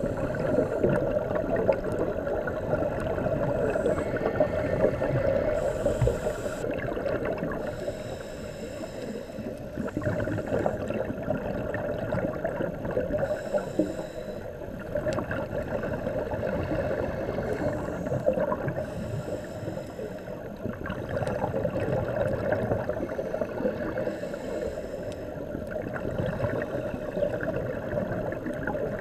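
Underwater scuba-diving sound: a diver breathing through a regulator, with exhaled bubbles rushing and gurgling. It makes a steady watery noise that swells and ebbs every few seconds, with a brief hiss recurring at about the same pace.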